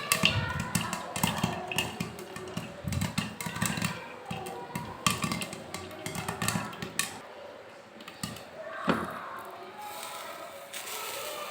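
A run of sharp pops and clicks in quick, irregular succession, with background music; the pops thin out in the middle and return near the end.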